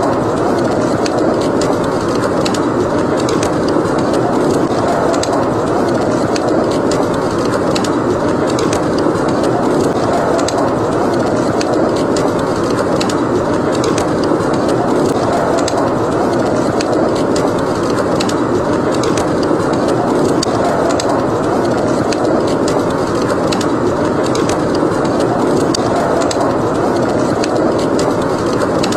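Wood fire crackling, with many small sharp pops scattered throughout, over a steady rush of blizzard wind that swells gently.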